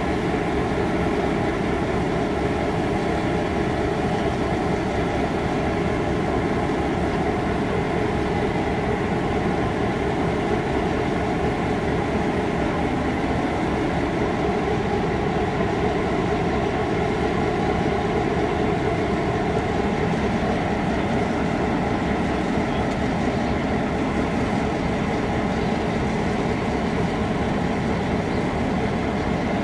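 Diesel-electric locomotives idling while standing still, led by a T-class locomotive: a steady, even engine rumble that holds without change.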